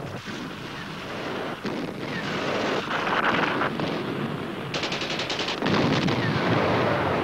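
Machine-gun fire over dense battle noise, with a fast rattle of about ten shots a second around five seconds in.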